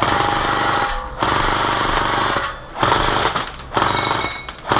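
Classic Army M133 airsoft microgun firing full-auto in long bursts, each about a second, three in a row with a fourth starting near the end.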